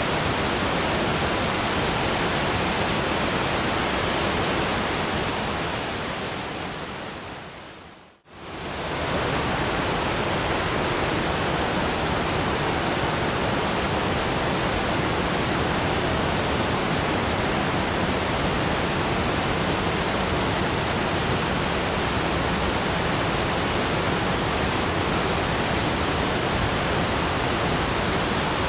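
Steady, even rushing noise of cascading waterfalls. It fades gradually to silence about eight seconds in, then comes straight back within a second and runs on unchanged.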